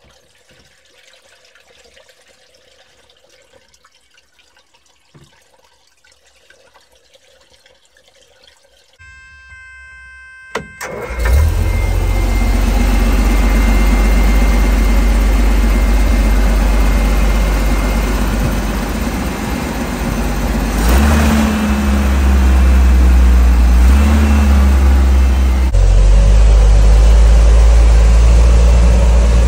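Bedford M-type 4x4 truck's engine, quiet at first, then running loud and steady from about eleven seconds in, preceded by a brief buzzing tone. Its revs rise briefly twice near the end as the truck drives.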